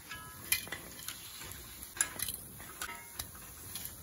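Perforated steel skimmer clinking and tapping against an iron kadai and an aluminium plate as fried balls are lifted out of hot oil: a string of sharp, light metal clicks, a couple with a brief ring.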